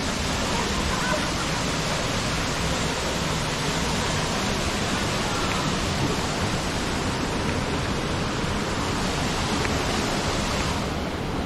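Jungle waterfall rushing steadily, a constant roar of falling water; its higher hiss thins out just before the end.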